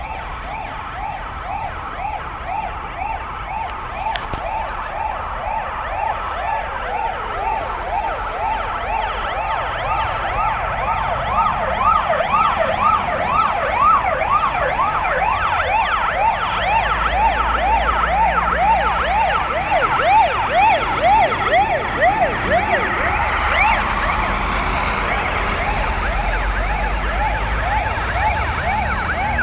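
Sirens of two Russian fire trucks on an emergency run, each a fast rising-and-falling yelp, overlapping at different pitches. They grow louder as the trucks approach and pass, with the trucks' engines rumbling low in the second half.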